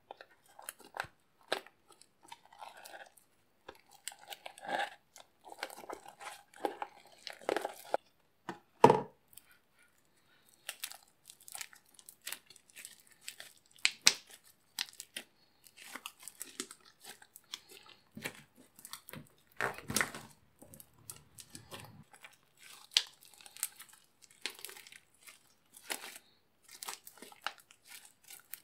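Hands squeezing and stretching slime mixed with pieces of hardened candle wax, giving irregular crunching and crackling, with the loudest crunch about nine seconds in.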